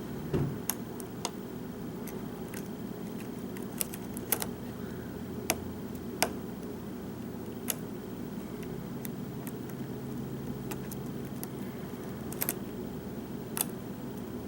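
Lock picks working a pin-tumbler lock built on a Tesa core: scattered, irregular light metallic clicks as the pins are lifted and set, over a steady low hum.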